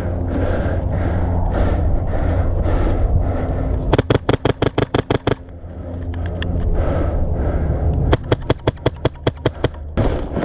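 Airsoft rifle firing two rapid full-auto bursts of about ten shots each, a few seconds apart, each lasting about a second and a half.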